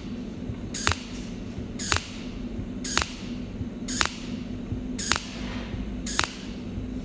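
Cold welding machine firing its tungsten electrode in single pulses along a sheet-metal seam, one weld dot per pulse. Each pulse is a sharp snap about once a second that trails off in a short hiss, over a steady low hum.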